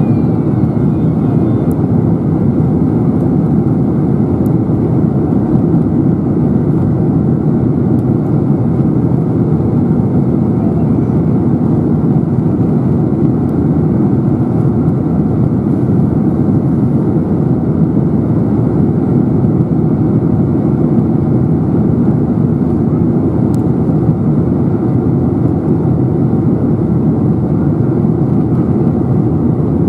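Steady cabin noise inside a Boeing 747-400 in flight, heard from a seat over the wing: the low, even rush of airflow and the jet engines running, with a faint steady whine above it.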